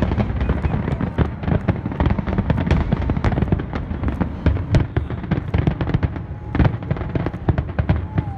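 Barrage of aerial firework shells bursting: rapid overlapping booms and crackles over a deep rumble, thinning slightly near the end.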